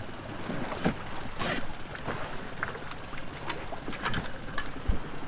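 Small waves lapping and sloshing against an inflatable dinghy and the hull of a wreck, with scattered small knocks and a low thump near the end.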